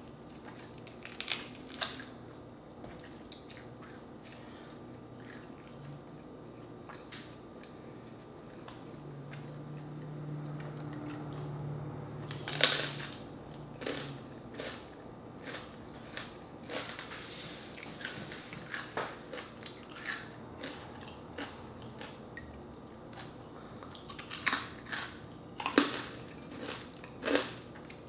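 Close-up chewing and crunching of crispy deep-fried pork leg skin (crispy pata), with scattered sharp crunches between quieter chewing. The loudest crunch comes about halfway through, and several more come near the end.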